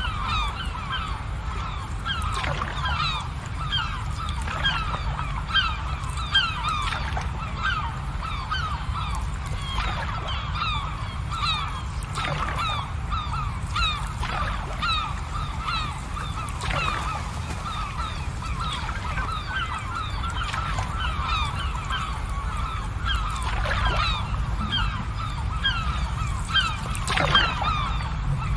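A large flock of birds calling all at once: many short, overlapping calls with no break, over a steady low rumble, with a few scattered clicks.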